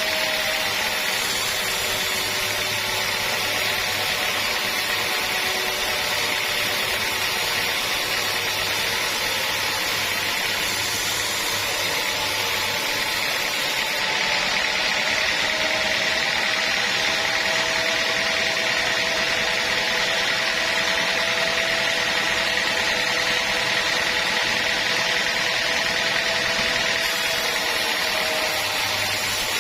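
Sawmill saw running steadily through a cut in a log, a constant machine noise with a high steady whine.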